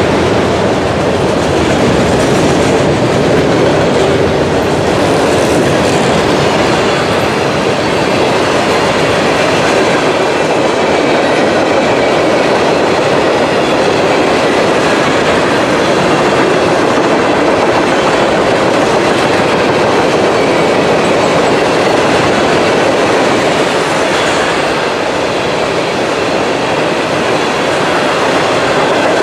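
Freight train cars rolling past at speed: a loud, steady rumble and clatter of steel wheels on the rails.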